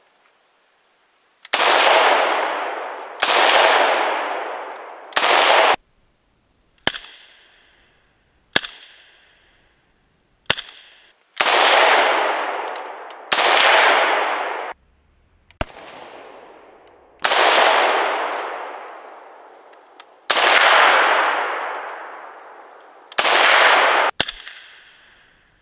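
Arsenal SLR-104FR, an AK-74-pattern rifle in 5.45x39mm, fired in single semi-automatic shots at a slow, uneven pace, each loud report trailing off in a long echo. About five sharper, shorter cracks with a brief ring fall between the loud shots.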